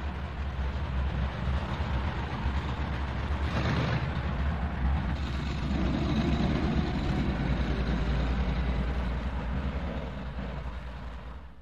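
A motor engine running: a steady low rumble with a hissing wash over it, growing louder toward the middle and fading away near the end.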